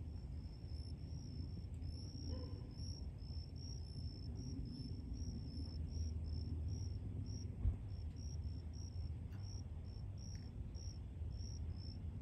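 Insects chirping steadily, a high pulsing chirp about three times a second, over a low rumble, with a single thump about eight seconds in.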